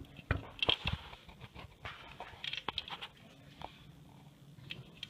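Rubber loom bands being stretched onto the plastic pegs of a Crazy Loom: small irregular clicks and light snaps, bunched in short runs.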